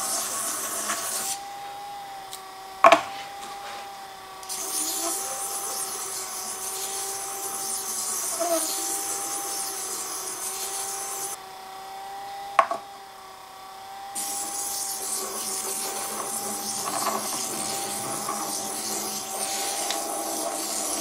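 Carbide lathe insert, held in its tool holder, being lapped on a spinning disc driven by a small geared electric motor. A steady motor whine runs under a hissing rub that comes in three spells, with a sharp click in each of the two short breaks, about three and about twelve seconds in. The lapping hones the insert's sintered cutting edge sharp.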